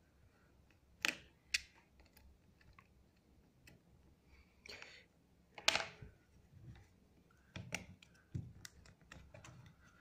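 Scattered small clicks and taps of hand tools and plastic parts during the disassembly of a Samsung GT-I9552 smartphone, as its last screw and back frame are worked loose.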